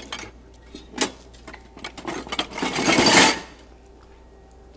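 A spoon scraping and knocking in a bowl as it cuts into a cheeseburger casserole: a few sharp clicks against the bowl, then a louder scrape lasting about a second near the middle.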